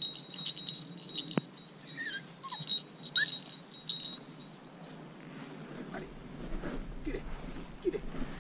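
A small bell jingling in quick shakes that stops about four seconds in, with a bird's short chirping calls in the middle.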